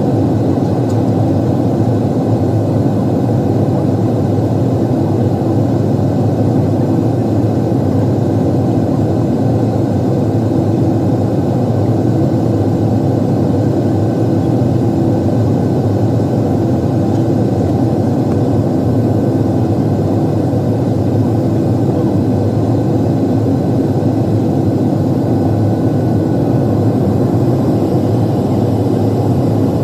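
Steady cabin noise of a jet airliner descending, the engine and airflow noise heard from a window seat, deep and even throughout, with a faint high whine above it.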